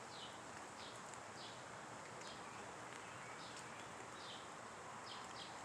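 Faint, short falling chip notes from a small bird, repeated irregularly about once or twice a second, over a steady outdoor hiss.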